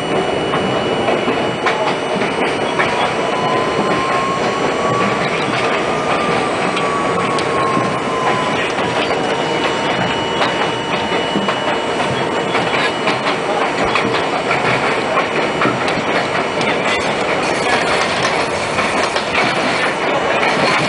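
New York City subway train running at speed along elevated track, heard from inside the front car: a steady running noise with scattered clicks. A thin whine rises over the first few seconds, then falls back and levels off.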